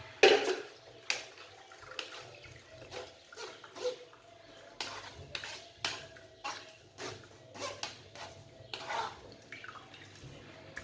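Blended lemon juice draining from the pulp in a sieve: irregular drips and small splashes into the bowl below, with a louder splash just after the start.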